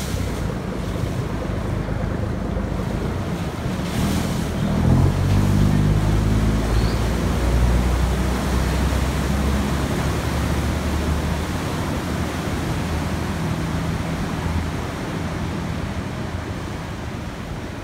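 Khlong Saen Saep commuter boat pulling away from the pier: its engine revs up about four to five seconds in and runs hard, then fades as the boat moves off, over the steady rush of its propeller wash churning the canal water.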